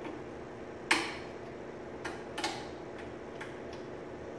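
A handful of sharp metallic clicks and taps, the loudest about a second in, as hands work the gas-line fittings and linkage at a small lawnmower engine's carburetor. A faint steady hum sits underneath; the engine is not running.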